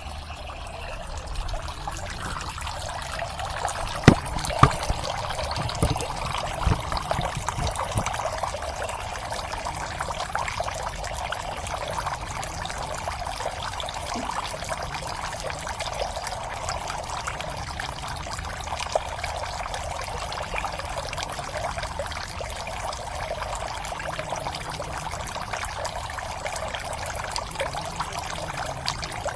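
Water pouring and trickling steadily into a pond, with a few sharp knocks or splashes about four to eight seconds in.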